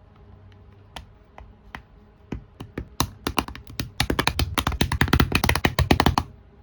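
Typing on a computer keyboard: a few scattered keystrokes, then a fast run of typing from about three seconds in that stops shortly before the end.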